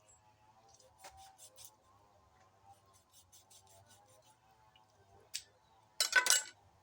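Faint background music with light clicking and clinking of kitchen items being handled, then a loud, brief clatter of clinks near the end.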